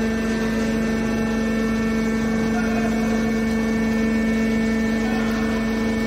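Hydraulic scrap metal baler's power unit running: a steady, fairly loud machine hum with a constant whine, which slowly grows louder.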